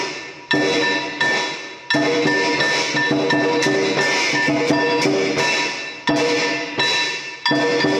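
Background music: repeated sharp percussion strikes, each fading out, over sustained ringing tones.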